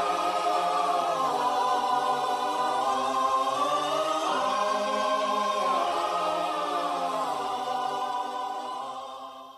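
Choir singing long held notes that glide slowly from chord to chord, fading out near the end.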